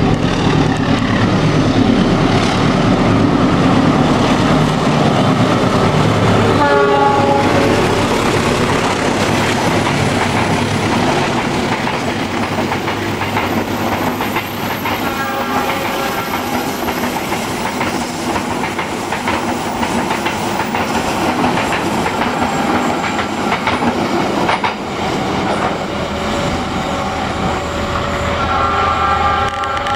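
Diesel-electric locomotives and a passenger train passing close by: the engines run, and the wheels clack over rail joints. The train horn sounds in short blasts about 7 seconds in, again around the middle and again near the end.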